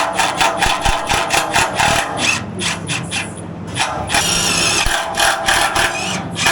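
A tool working with rapid, even strokes, about five a second, broken by a steadier run of about a second around four seconds in.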